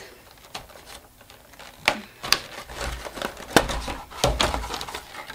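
Packaging of a trading-card collection box being opened and handled: irregular clicks, taps and crinkles of cardboard and plastic. There are some dull thumps around the middle.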